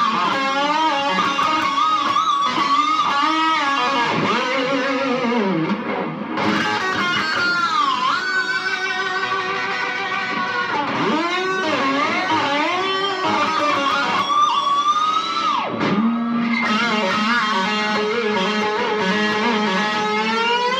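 Kramer Pacer Classic electric guitar played through a Boss DS-1 distortion pedal into a delay: distorted shred lead lines with wide vibrato. Several times the pitch swoops down and comes back up.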